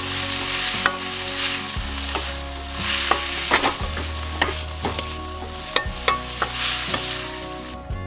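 Noodles sizzling as they fry in oil in a Chinese wok, while a utensil repeatedly scrapes and clinks against the wok to keep them from sticking.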